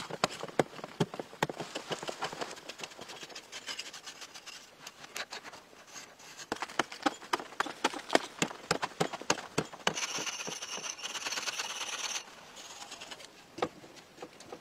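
A long digging pole striking and chipping at hard, dry earth: a quick, irregular run of sharp knocks. About ten seconds in, the knocks give way to a couple of seconds of steady hiss, and a single knock comes near the end.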